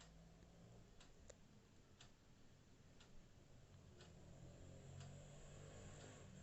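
Near silence of room tone with a faint tick about once a second, like a clock ticking.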